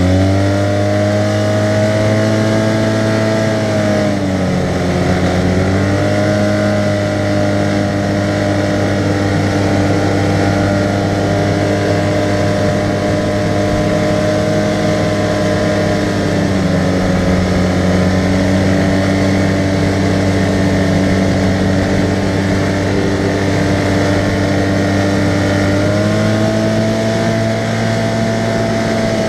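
Arctic Cat side-by-side UTV engine running steadily at cruising speed. Its pitch dips briefly about four seconds in, drops slightly midway, and rises again near the end.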